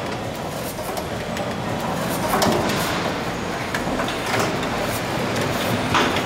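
Car assembly-line noise: a steady factory hum with a few scattered metallic clicks and clunks, about two seconds apart, from the workers handling a cockpit module on its handling manipulator.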